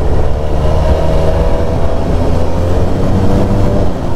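Parallel-twin adventure motorcycle engine running steadily under way, its pitch rising slightly and easing back within the first few seconds.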